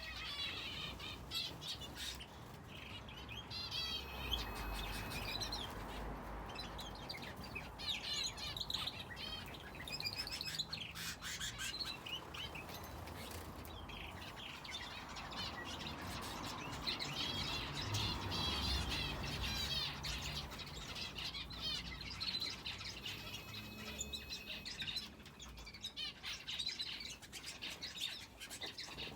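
Small aviary finches and a canary chirping and twittering continuously, many short calls overlapping, with a few brief held whistled notes among them.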